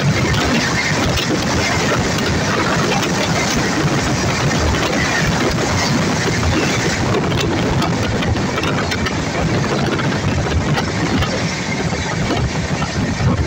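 Steady rush and rumble of trains running at speed: steel wheels on rails as a red passenger train passes close alongside, then a freight train of open wagons runs on the next track.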